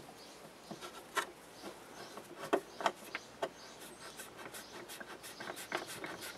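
A screwdriver turning screws into the plastic mounting of a hot tub pump. It makes irregular small clicks and scrapes, a handful spread through.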